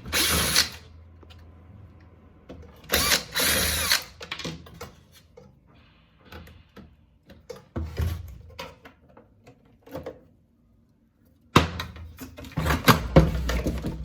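Cordless drill running in two short bursts, about a second each, near the start and about three seconds in, backing screws out of an ice maker's casing. Then scattered clicks and knocks of plastic and metal parts being handled, growing into busy clattering near the end.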